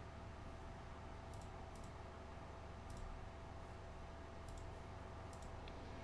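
A few faint, sharp computer mouse clicks, two of them close together, over a low steady electrical hum.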